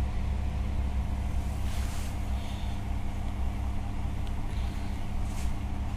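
Steady low machinery hum, with a faint brief hiss about two seconds in and again near the end.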